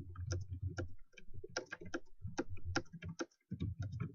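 Computer keyboard being typed on fast during a typing speed test, a rapid run of key clicks with a brief pause a little after three seconds in.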